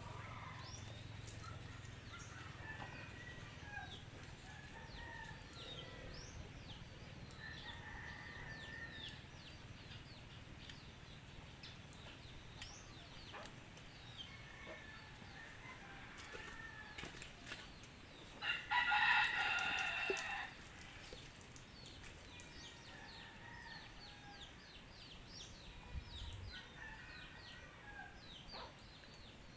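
A loud, drawn-out call lasting about two seconds, about two-thirds of the way in, over many short, high chirps of birds.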